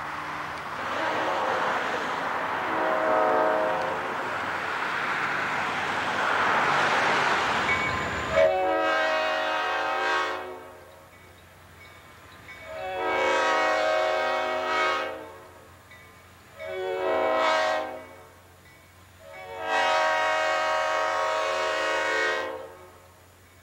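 Diesel locomotive air horn sounding the grade-crossing signal as a train approaches the crossing: two long blasts, a short one, then a final long one. These follow several seconds of steady rushing rail noise with a faint horn in the distance.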